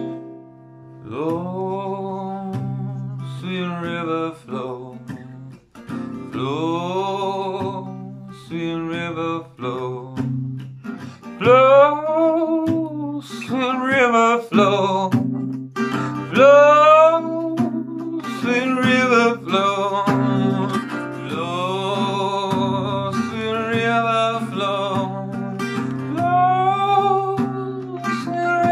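A man singing to his own acoustic guitar accompaniment, the guitar capoed on the neck. The guitar rings alone at first and the voice comes in about a second in.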